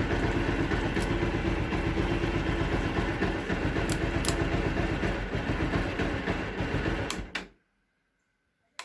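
Bajaj Pulsar 180's single-cylinder engine running steadily at idle, then stopping abruptly about seven and a half seconds in. A single sharp click follows near the end.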